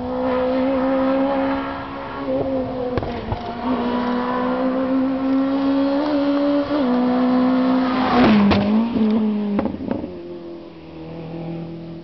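Renault Clio Group A rally car's four-cylinder engine under hard acceleration, its note climbing and stepping down through several gear changes. It passes close at its loudest about eight seconds in, the pitch dropping sharply as it goes by, then fades away.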